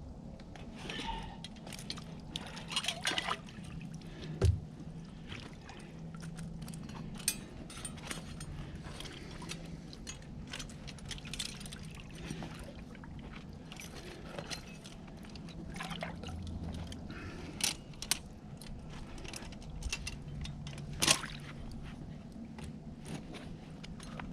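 Water sloshing and splashing in irregular bursts, with scattered sharp knocks and clicks as something is handled in shallow water.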